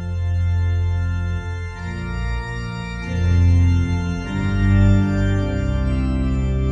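Organ music: slow, held chords over a deep bass, the chord changing every second or two.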